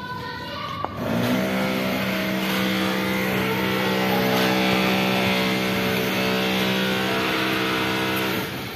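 A motor engine running steadily. It comes in about a second in and stops shortly before the end.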